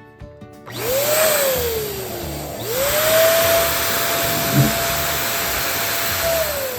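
Electric balloon inflator blowing air with a motor whine. It is switched on briefly about a second in and spins down, then runs steadily for several seconds, winds down near the end, and starts up again.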